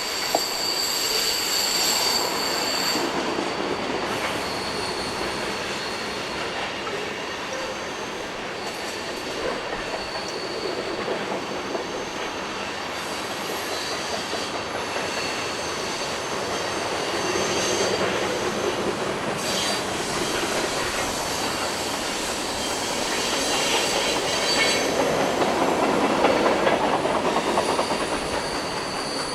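BNSF freight train rounding a curve, its wheels squealing against the rails in high, steady tones that come and go over the rumble and clatter of the passing cars.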